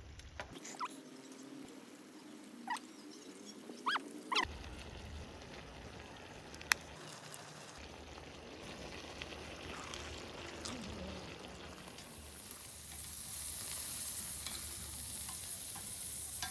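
Food sizzling as it cooks, with a few light clinks. The sizzle gets louder and hissier about twelve seconds in.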